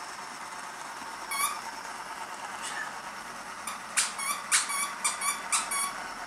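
A squeaky dog toy squeaking: one squeak about a second in, then a quick run of about eight short squeaks in the second half.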